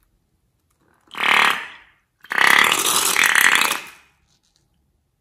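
Slime-filled rubber balloon being squeezed empty through its neck, the slime and air forcing out past the rubber lips. There are two squirts: a short one about a second in, then a longer buzzing one of nearly two seconds.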